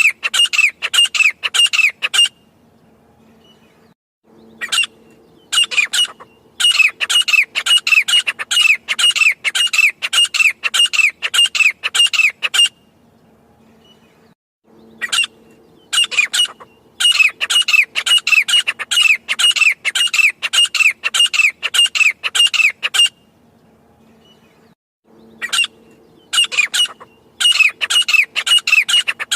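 Grey francolin (teetar) calling: long bouts of loud, rapidly repeated notes, about three a second, with pauses of a couple of seconds between bouts.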